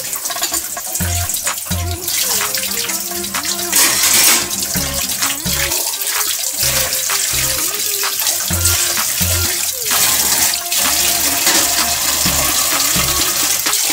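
Kitchen tap running into a stainless steel sink while a utensil is rinsed by hand under the stream. Background music with a regular low beat plays along.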